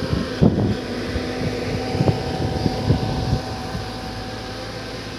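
Excavator's diesel engine running steadily, with a few short knocks over it about half a second, two, three and three and a half seconds in.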